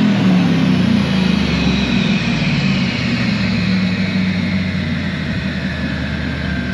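Supercharged 5.4-litre V8 of a 2004 Ford F-150 SVT Lightning running steadily just after a rev. The blower's high whine falls slowly in pitch as the engine settles.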